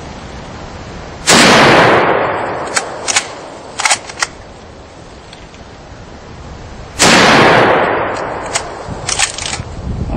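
Two shots from a Lee-Enfield No. 1 Mk III .303 British bolt-action rifle, about six seconds apart, each echoing away over about a second. Between them come a few sharp metallic clicks of the bolt being worked to chamber the next round.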